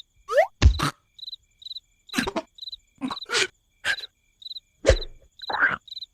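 Cartoon soundtrack: insect-like chirping repeating at an even pace, about two chirps a second, with short character noises and sound effects breaking in between, one a quick rising squeak about half a second in.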